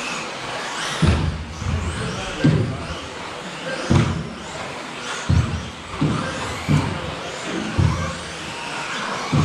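Several 1/10 scale electric off-road RC buggies racing: the high whine of their motors rises and falls as they accelerate and brake, with low thuds about once a second.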